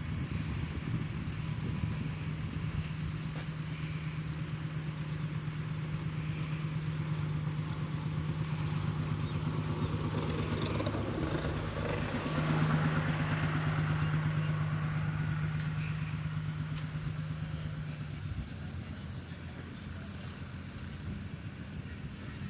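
Engine of heavy road construction machinery running steadily. It grows louder about halfway through, then drops away near the end, leaving a fainter rumble.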